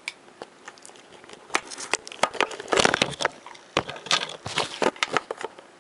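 A cardboard pizza box and its crust being handled: an irregular run of crackles and crunches, densest about three seconds in and stopping shortly before the end.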